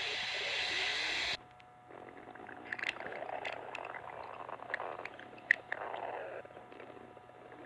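A loud hissing sound cuts off suddenly about a second and a half in. Then comes a recording of a stomach growling: low gurgling rumbles with scattered small clicks and pops, one louder pop past the middle.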